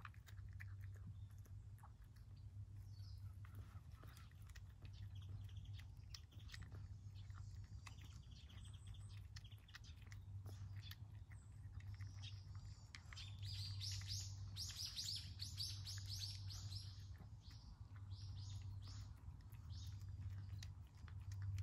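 Cat chewing wet food and kibble from a plate, with soft clicks of chewing throughout. About halfway through, a bird chirps in a quick run of about three chirps a second for a few seconds. A steady low hum runs underneath.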